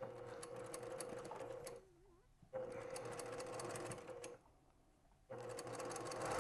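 Electric sewing machine stitching in three short runs of about two seconds each, a steady motor hum with rapid needle clicks, stopping briefly twice in between; the third run starts near the end.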